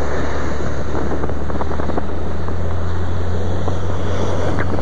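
Cessna 152's four-cylinder engine and propeller running steadily, a loud even drone heard from inside the cockpit.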